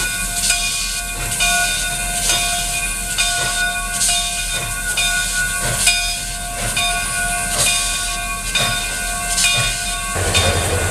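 Canadian Pacific 2816, an H1b Hudson steam locomotive, hissing steam while a bell rings in a slow, even rhythm of about one stroke a second, each stroke ringing on. Near the end the sound changes to a low rumble.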